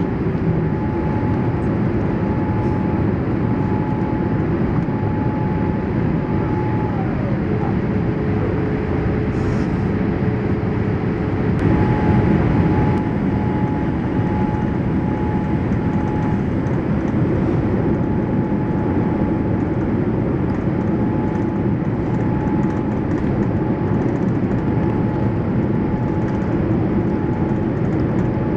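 Cabin noise aboard a Boeing 787-8 with Rolls-Royce Trent 1000 engines: a steady rumble and rush of air. A faint whine drops to about half its pitch about seven seconds in and jumps back up about five seconds later.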